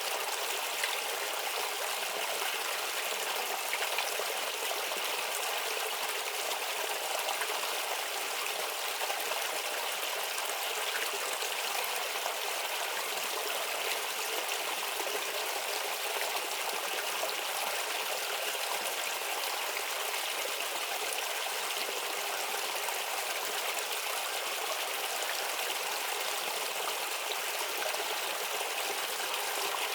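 A shallow stream babbling and trickling steadily over stones, with no pauses or changes.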